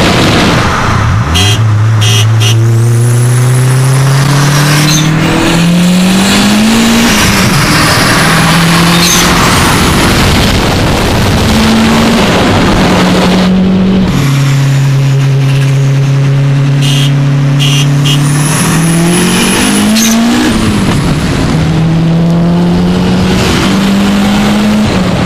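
Audi A3 with a big Holset HX35 turbo accelerating hard, heard from inside the cabin. The engine note climbs in pitch through each gear and drops at every upshift, over several gears. A high whistle appears after several of the shifts.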